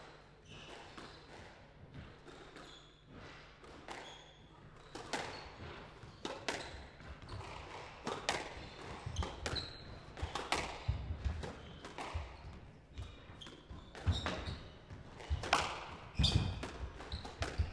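Squash rally: the ball cracking off rackets and smacking into the walls in an irregular run of sharp hits, with short squeaks of shoes on the court floor. The hitting grows denser and louder about five seconds in.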